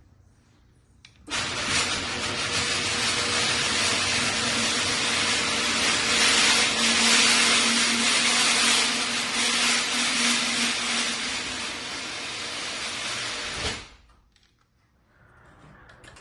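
A motor-driven machine starts abruptly about a second in and runs steadily for about twelve seconds, a loud hiss over a faint steady hum, then stops suddenly.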